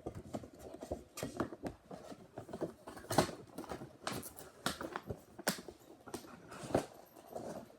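Irregular clicks, taps and rustles of objects being handled: a squishy and its packaging being put away.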